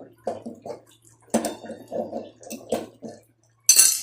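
Irregular knocking and clattering of metal tools and parts as a washing machine's drum pulley is worked off, with a sharp clank about a second in and a louder scraping clank near the end, over a faint steady electrical hum.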